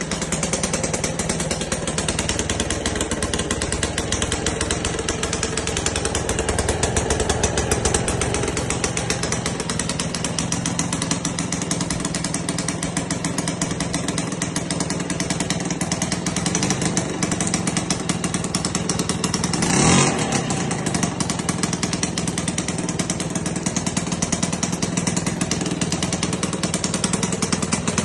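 Piaggio Grillo moped's 50cc two-stroke single, fitted with electronic ignition, running steadily at a fast idle. About twenty seconds in, the pitch and level rise briefly.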